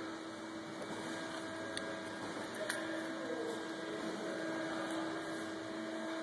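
A steady hum with two faint clicks, about two and three seconds in, as a thin metal pick pries at the plastic battery cover of a Mini Cooper key fob.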